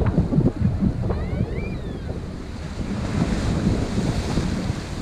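Wind buffeting the microphone over waves washing against the rocks of a jetty. The surf hiss swells from about three seconds in. A brief chirping call sounds about a second in.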